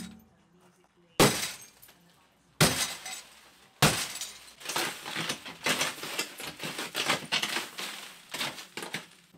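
Sledgehammer blows on a fallen toughened-glass window panel: three sharp strikes about a second apart. The third breaks the pane, and a long crackling and tinkling follows as the toughened glass crazes and crumbles into small beads.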